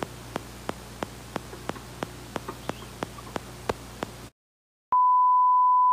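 Regular ticking, about three sharp clicks a second, over a faint hum. It cuts off abruptly to silence, and then a loud, steady, single-pitch bleep tone starts about five seconds in.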